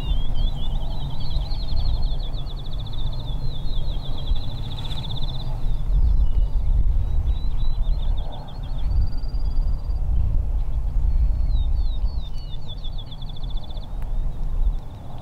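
A small songbird singing several long phrases of rapid, high trilled notes, with a short steady whistle in between, over a loud low rumble.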